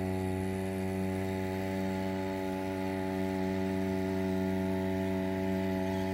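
Small 2 hp two-stroke petrol outboard motor, built from a whipper-snipper engine, running at a steady pitch.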